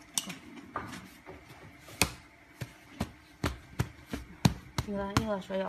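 A dozen or so sharp, irregularly spaced taps and clicks, some loud, with a short voice near the end.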